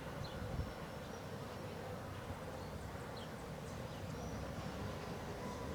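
Boeing 737 NG's CFM56-7B jet engines heard from a distance as a faint, steady drone.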